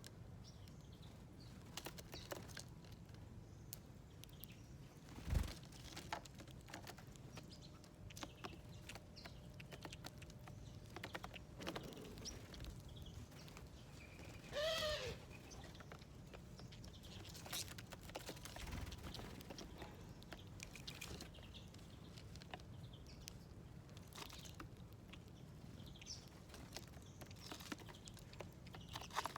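Small wild birds feeding at a seed dish: scattered light pecking and scrabbling clicks, a single thump about five seconds in, and one short harsh bird call about fifteen seconds in.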